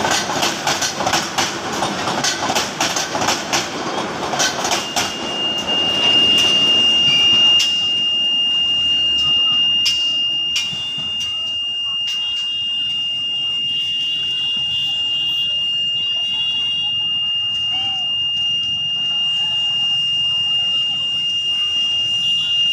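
Passenger coaches of an intercity train rolling past close by, wheels clicking rhythmically over the rail joints. About five seconds in, the clicking fades and a steady high-pitched tone sets in and holds, over a background of street and crowd noise.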